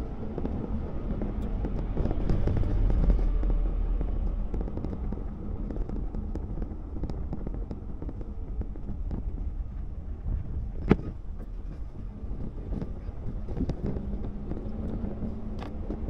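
Car driving along a paved road, heard from inside the cabin: a steady low rumble of engine and tyres. A single sharp knock comes about eleven seconds in.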